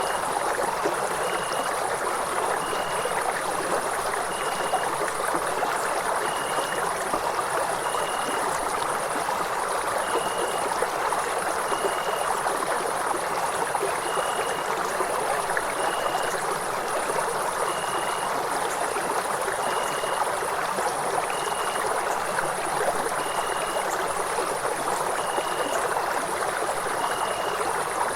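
Night-time nature ambience: a steady stream of flowing water, with a high, pulsing trill above it and a short high note repeating about every two seconds.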